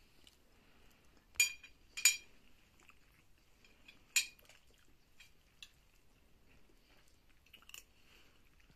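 Metal spoons and forks clinking against ceramic dinner plates while eating. There are three sharp ringing clinks in the first half, then a few fainter taps.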